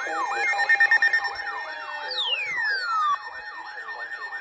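Electronic siren sounding a fast up-and-down sweep about three times a second, over steady alert tones. About two seconds in, a falling tone slides down across it, and just after three seconds in the whole sound drops quieter.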